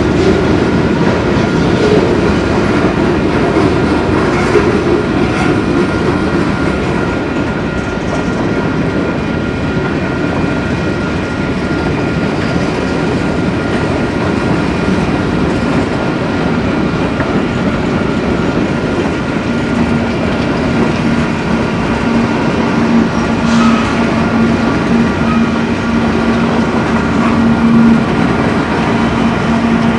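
Train of railroad cars rolling on the track, its wheels clicking over rail joints in a steady loud rumble. A steady low hum joins about two-thirds of the way in.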